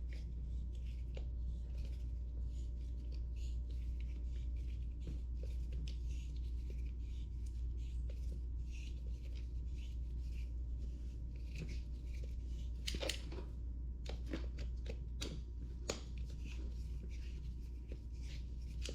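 Hand-work on a scooter wheel during a tire change: scattered clicks, scrapes and rustles, with a cluster of sharper clicks about thirteen to sixteen seconds in, over a steady low hum.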